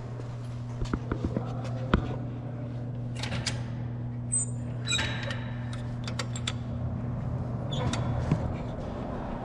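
A steady low hum, with scattered knocks and clicks over it; the sharpest knock comes about two seconds in.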